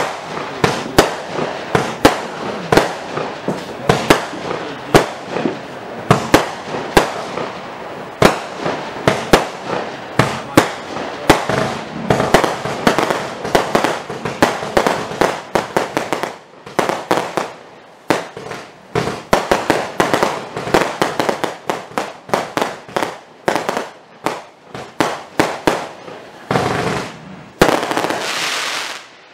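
CLE4105 Gold Edition 80-shot, 20 mm compact firework cake firing in quick succession: sharp shots and bursts, two to four a second, over continuous noise. Near the end a dense rush lasts about a second and a half before the shots stop.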